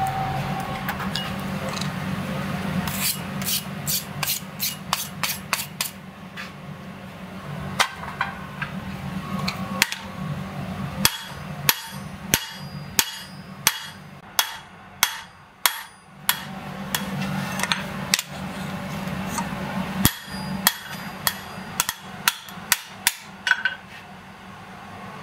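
Blacksmith's hammer striking red-hot steel plate on an anvil, each blow ringing briefly; a quick run of blows a few seconds in, then spaced strikes, some in short groups. A steady low hum runs underneath.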